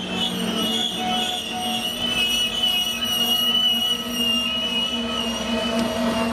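Freight train tank cars rolling past on curved track, their wheels squealing in a high, steady, slightly wavering tone over the noise of the moving cars.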